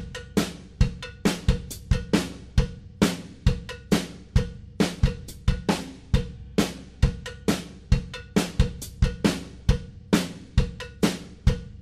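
Background music: a drum-kit beat of kick, snare and cymbals, with sharp hits a few times a second in a steady rhythm.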